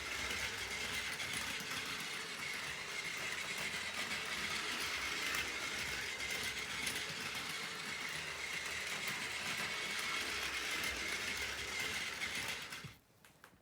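Battery-powered Plarail toy train, a Doctor Yellow Shinkansen model, running along plastic track: a steady motor whir with a faint high whine. It cuts off suddenly near the end.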